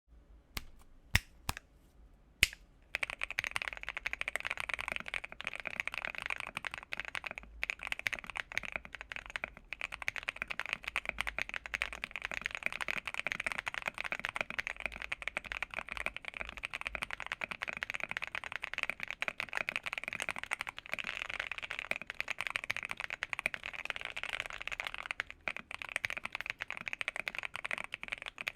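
Typing on an Akko PC98B Plus mechanical keyboard with Akko CS Air switches: a few single keystrokes, then fast continuous typing from about three seconds in.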